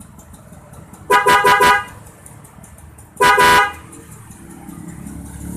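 Denso waterproof electric horn on a motorcycle, sounded in two steady-pitched blasts: one of under a second about a second in, then a shorter one about two seconds later.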